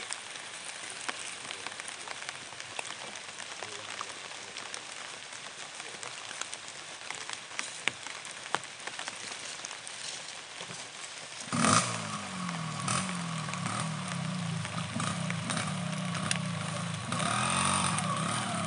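Log-hauling motorcycle (motor gerandong) engine started about two-thirds of the way in, then running with uneven revving and getting louder near the end. Before it starts there is only a faint hiss with scattered small ticks.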